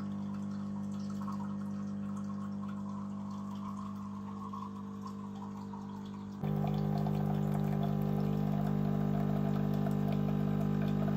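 Siemens EQ.6 series 300 bean-to-cup coffee machine brewing: its pump running with a steady hum while coffee pours into the mug. The sound steps up louder about six seconds in.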